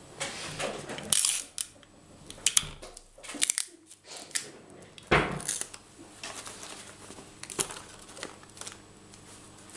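Stiff paper pyramids rustling and crackling as they are handled and pressed together, in a scattered run of short crackles and clicks, with a dull thump about five seconds in.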